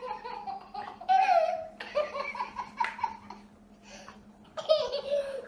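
A small child laughing and giggling in several high-pitched bursts, with a short lull a little past the middle.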